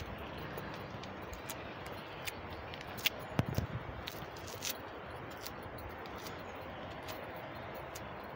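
Footsteps on concrete steps, short irregular clicks and scuffs, the loudest with a low thud about three seconds in. They sit over a steady outdoor background hiss.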